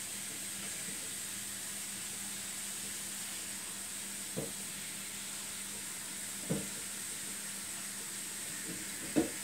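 Hot water running steadily from a tap off to the side, an even hiss, with a few faint knocks.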